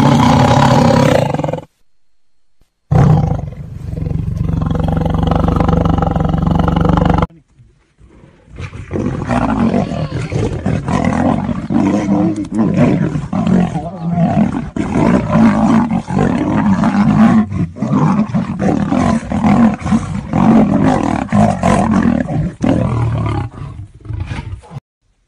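Lion and tiger roaring and snarling. It opens with a short loud roar and a long deep roar, breaks off briefly about 7 s in, then turns into a long stretch of continuous snarling and rasping roars that stops just before the end.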